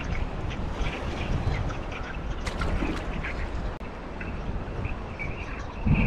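Strong wind buffeting the microphone, with choppy lake water lapping and slapping against a small boat's hull in short splashes.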